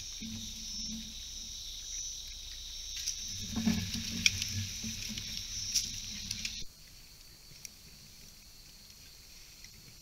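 Steady high-pitched insect drone with scattered light clicks and rustles. It cuts off abruptly about two-thirds of the way in, leaving a fainter, quieter background.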